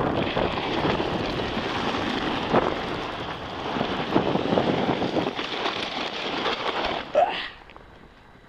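Steady rush of wind on the microphone and a Flexible Flyer Yankee Clipper sled sliding fast over snow-packed road. About seven seconds in there is a brief rising sound, and then the noise drops away as the sled stops.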